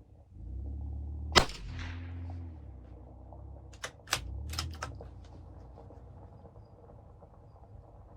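One shot from a CZ 457 bolt-action .22 WMR rifle firing Hornady Critical Defense, with a short echo trailing after it. About two and a half seconds later come four quick metallic clicks: the bolt being worked to eject the case and chamber the next round.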